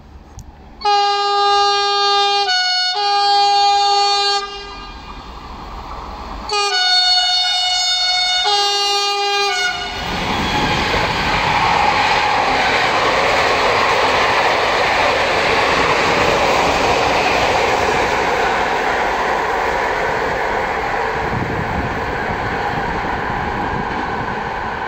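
Renfe class 253 electric freight locomotives sounding their horn in two long blasts a few seconds apart, each briefly broken, as a greeting to the person filming. Then, from about ten seconds in, a loaded train of hopper wagons rolls past with a steady rumble and rattle of wheels on the rails, easing slightly near the end.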